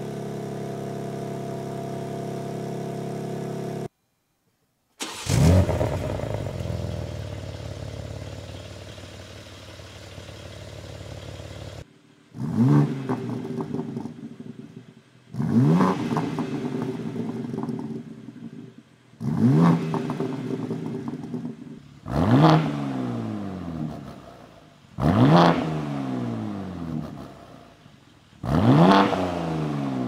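BMW G80 M3's twin-turbo S58 straight-six on the stock exhaust: it idles steadily, then starts with a sharp flare that settles back toward idle. From about twelve seconds in comes a series of six quick throttle blips to about 4,000 rpm, about three seconds apart, each rising and falling in pitch.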